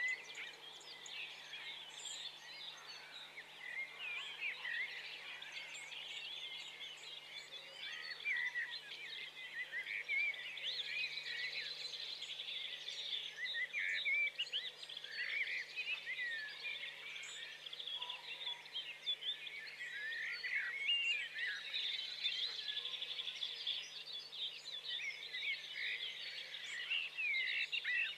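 A dense chorus of many small birds chirping at once, a steady tangle of short overlapping chirps.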